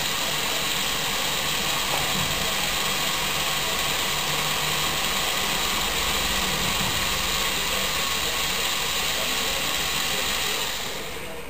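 LEGO Technic Power Functions electric motors running with a steady whirr, cutting out shortly before the end.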